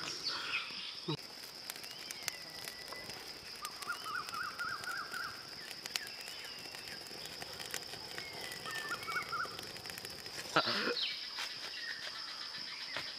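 Forest ambience: a steady high insect drone with birds calling over it, including two bouts of quick trilled notes and a few whistled gliding notes. About ten and a half seconds in comes a short, louder voice-like call.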